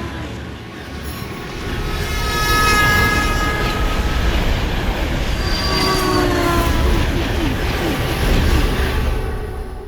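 A train passing by, with a heavy low rumble of its wagons and high steady tones that glide downward in pitch about six seconds in. It grows louder over the first few seconds and fades away near the end.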